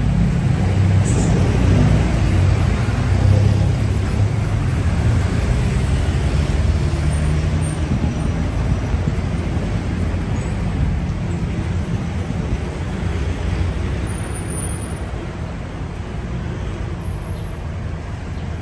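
City street traffic with a vehicle engine running close by. The engine is loudest in the first few seconds and slowly fades.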